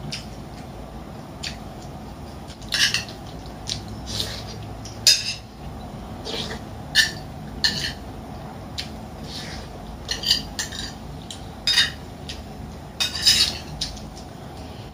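A metal spoon scraping and clinking against a ceramic bowl while eating, in about a dozen short, irregular strokes over a steady low hum.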